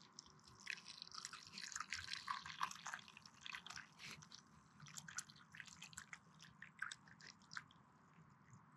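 Hot coffee poured from a camping kettle into a small cup: a thin trickling stream splashing and dripping faintly, thinning out near the end.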